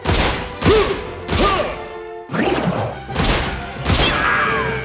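A series of loud pistol shots, a few tenths of a second to about a second apart, over a film music score.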